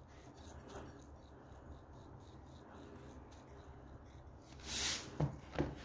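Salt shaken from a canister onto a bowl of boiled potatoes, heard as faint scattered ticks of grains. Near the end there is a short hiss, followed by two light knocks.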